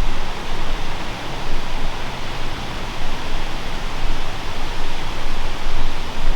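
Steady rushing noise with a rumbling low end that swells and dips unevenly, typical of wind buffeting the microphone.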